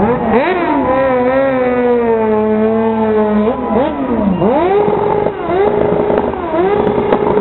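Sport motorcycle engine revving hard as the bike accelerates away: the pitch shoots up, holds, drops sharply about halfway through, then climbs again and holds high and steady, dipping briefly twice.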